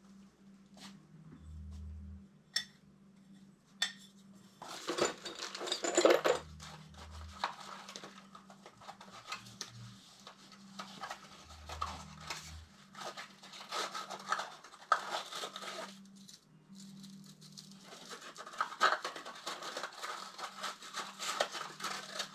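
Irregular metallic clinks, taps and scraping as copper pipe and fittings are handled and worked by hand with a tool.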